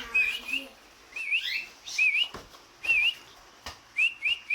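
Cockatiels chirping: short whistled calls that rise and fall, repeated about once a second, with a quick pair near the end. Two light clicks come between them.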